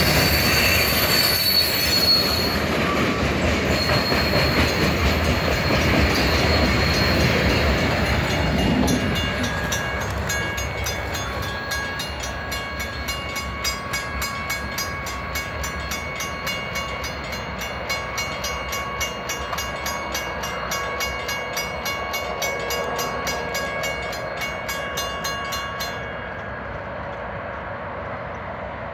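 A freight train's cars rumble past a grade crossing, with a high wheel squeal near the start. The rumble fades about nine seconds in, leaving the crossing bell ringing in even strokes until it stops near the end.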